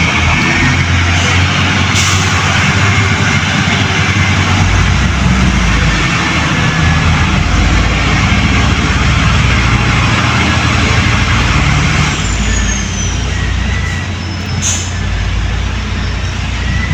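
Diesel engine of a heavy construction machine working at close range, its low note shifting up and down under changing load over a loud, dense mechanical noise, with a sharp click about two seconds in and another near the end; it eases a little in the last few seconds.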